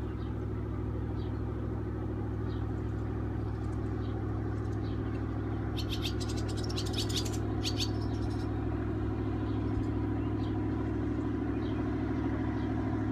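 Motorboat engine droning steadily, growing slightly louder. A cluster of bird chirps comes about six to seven and a half seconds in, with a few faint chirps elsewhere.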